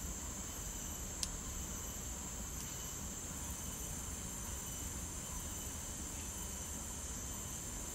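A steady, high-pitched insect chorus, with one sharp click just over a second in.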